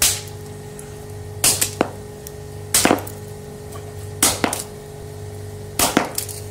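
A sledgehammer smashing a plastic keypad phone on pavement: five sharp blows about every second and a half, most followed by one or two smaller knocks of the hammer and pieces. A steady low hum runs underneath.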